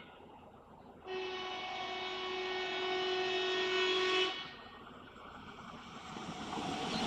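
Renfe train horn sounding one long steady blast of about three seconds, starting about a second in. Near the end the rumble of the passing train builds up.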